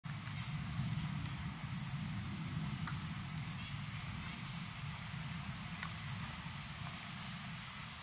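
Woodland ambience: a steady high insect drone, scattered short high bird chirps and a steady low rumble underneath, with a couple of faint knocks about three and six seconds in.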